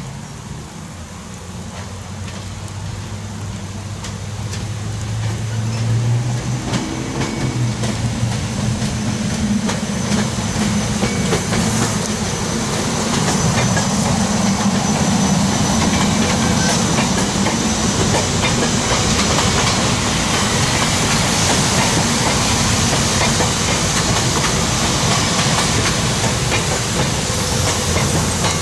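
SEPTA electric multiple-unit commuter train approaching and passing close by. A low hum grows louder over the first dozen seconds. The rush of the passing cars, with quick clicks of wheels on the rails, then holds at full level.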